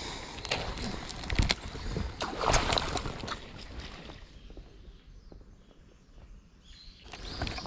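Sharp knocks of the lure and tackle being handled, then a splash of water as a bass strikes at the jointed swimbait on the surface, the loudest sound, about two and a half seconds in.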